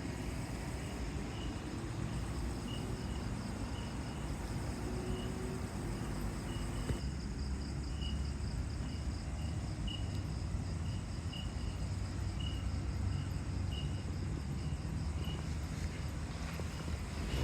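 Insects calling, crickets by their sound: a short high chirp repeating every half second or so over steady high-pitched trilling. A low rumble runs underneath and grows louder about halfway through.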